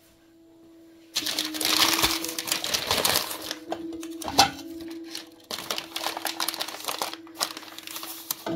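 Crumpled paper rustling and crinkling as ceramic plates are unwrapped from their packing, starting about a second in, with one sharper knock partway through.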